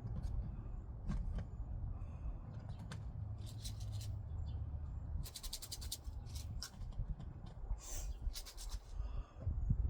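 Hands at work planting seeds: short, crisp rustling and scraping strokes and clicks, with a quick rattling run about halfway through, over a low steady rumble.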